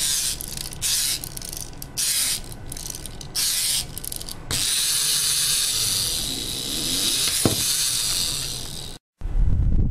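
Small wind-up toy penguin: its clockwork key is wound in a few separate ratcheting bursts, then the spring mechanism runs steadily for about four seconds as the toy walks. Near the end there is a cut to a loud low rumble.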